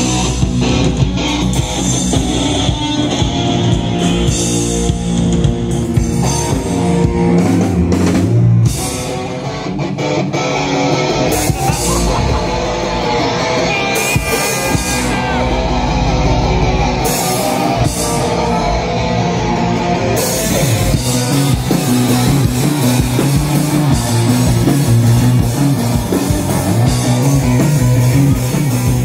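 Live rock band playing through a PA: electric guitars, bass and a drum kit. About nine seconds in the music drops to a slightly quieter, thinner passage, and the full band comes back in about twenty seconds in.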